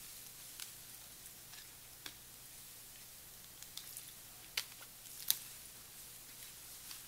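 Quiet room tone with a faint steady low hum, broken by a handful of small sharp clicks and taps; the loudest click comes about five seconds in.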